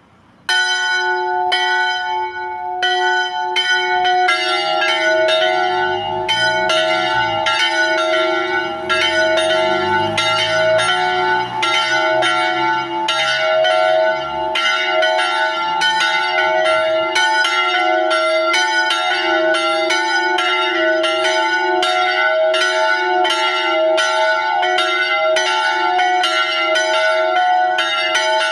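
Two small bronze church bells, tuned to E and F sharp and cast by Daciano Colbachini in 1922, swinging and ringing in an open bell-cote as the call to mass. One bell starts alone with strokes about a second apart; about four seconds in the second bell joins, and the two strike in alternation about two times a second.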